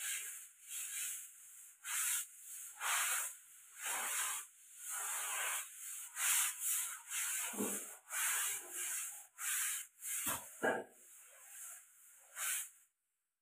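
Repeated rasping rubbing strokes, about one a second with a few dull knocks among them, stopping abruptly near the end.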